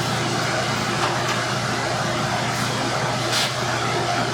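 Blacksmith's forge running steadily: the blower and fire give a constant rushing roar over a low hum while a piece of steel heats. A short hiss rises briefly about three seconds in.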